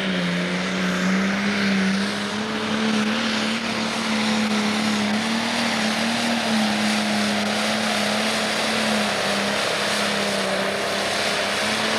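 Pro Stock pulling tractor's turbocharged diesel engine running flat out at a steady high pitch under full load, dragging the weight-transfer sled down the track.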